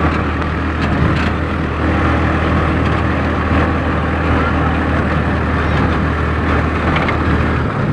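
Engine and road noise of a moving vehicle, heard from on board: a loud, steady drone with a low hum that drops away near the end.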